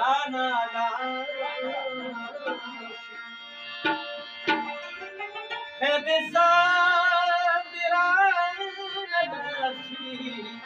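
A ghazal performed live: a man singing with wavering, ornamented phrases over steady harmonium chords, with tabla strokes. The voice comes in at the start and again for a long phrase from about six seconds in, with a couple of sharp tabla strokes in the gap around four seconds.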